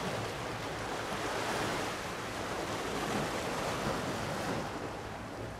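Sea waves washing at the shore with wind on the microphone, a steady rushing that eases slightly near the end, over a faint steady low hum.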